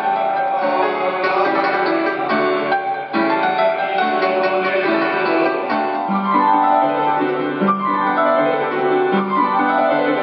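Digital piano played with both hands: chords over a moving bass line, with quick descending runs about six seconds in and again near the end.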